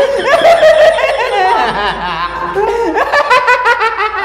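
Two young men laughing hard together, loud and continuous.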